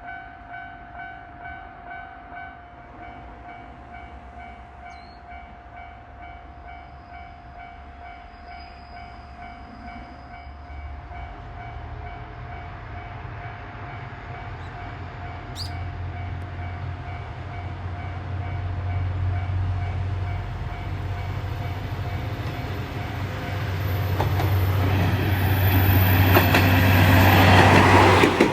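Railway level-crossing warning bell ringing in a steady pulsing tone while a diesel railcar approaches. The train's engine rumble grows steadily louder and peaks near the end as it passes, with wheels clattering on the rails.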